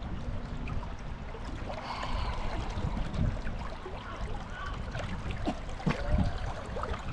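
River water flowing and trickling, with a low rumble of wind on the microphone and a few faint distant voices.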